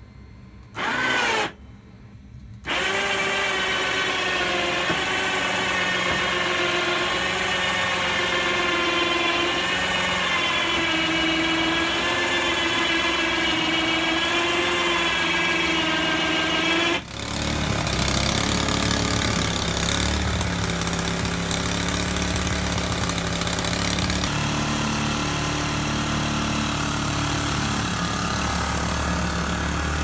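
Home-built remote-control snowblower running. A motor spins up briefly about a second in, then from about three seconds in a steady motor whine runs, wavering in pitch. About 17 seconds in the sound changes suddenly to a lower, rougher engine note.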